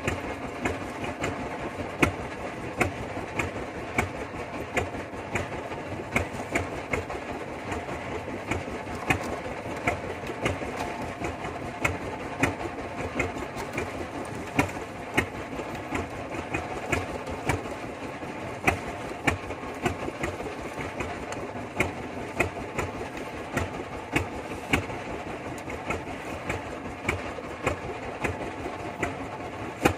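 Fishing boat's engine running steadily, with frequent sharp knocks at uneven intervals over it.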